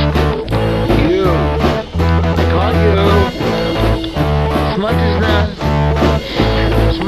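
Background music: guitar over a steady bass line, the guitar bending its notes up and down.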